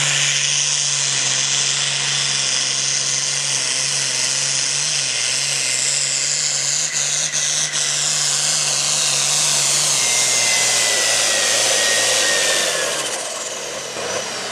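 Turbocharged International diesel pulling tractor running flat out while dragging a weight-transfer sled, with a loud high whine over the engine note. About ten seconds in, the engine note and a thin whistle fall in pitch as the pull winds down, and the sound drops away near the end.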